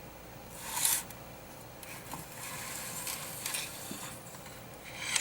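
A car amplifier's circuit board scraping against its metal heatsink casing as it is slid out: a sharp scrape about a second in, then uneven rubbing and scraping with a few short louder scrapes.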